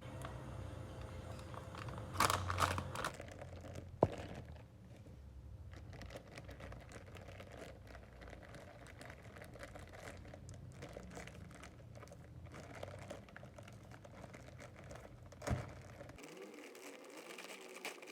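Crinkling and rustling handling noises, loudest about two seconds in, with a sharp click about four seconds in and a short knock near the end.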